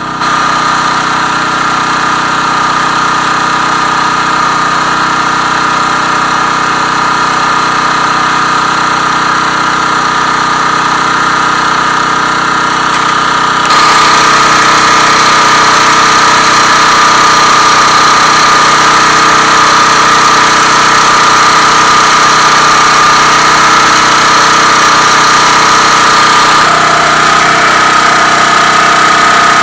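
Generator engine running steadily, a constant pitched hum. About 14 seconds in it turns suddenly louder and brighter.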